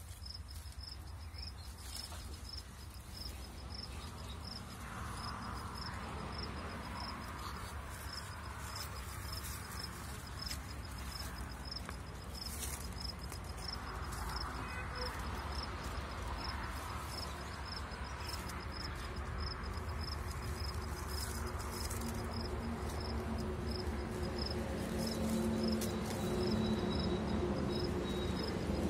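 An insect chirping in a steady run of evenly spaced, high-pitched pulses, over a low steady rumble.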